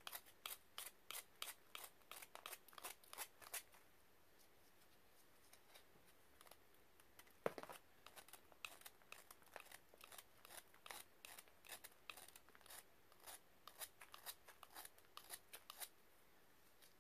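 A hard, powdery white block being scraped and crumbled by a gloved hand, in quick repeated scratchy strokes of about three a second. The strokes pause for a few seconds, then a single louder crack comes about halfway through, and the strokes resume.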